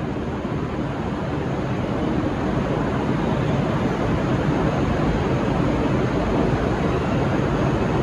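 V/Line VLocity diesel multiple unit running past as it departs, a steady rumble of engines and wheels that grows a little louder about two seconds in.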